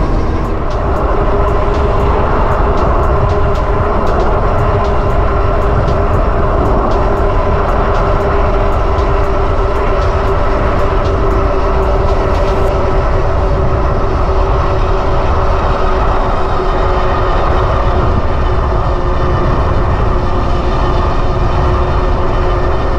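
Wind buffeting the microphone on a moving Super73 electric bike, over a steady whine from its rear hub motor. Faint ticking comes through in the first half.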